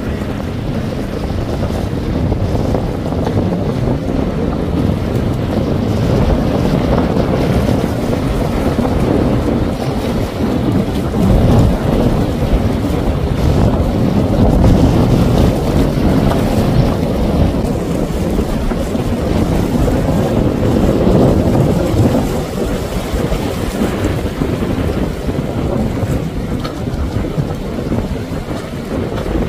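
Jet skis running at speed through choppy water: engine noise mixed with splashing wake and spray, with wind buffeting the microphone. The noise swells somewhat in the middle of the stretch.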